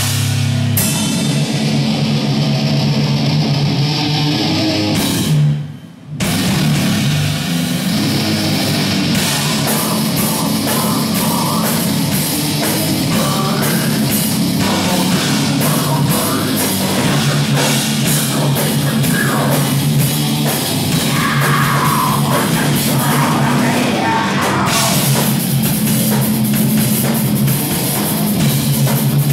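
Death/thrash metal band playing live: distorted electric guitars and drum kit, with vocals into a microphone. The band cuts out for a split second about six seconds in, then comes back in at full volume.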